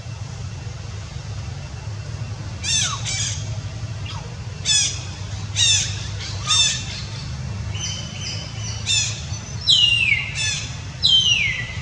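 Newborn kittens mewing: a string of about ten short, high, falling cries beginning a few seconds in, the last two longer and sliding down in pitch. A steady low hum runs underneath.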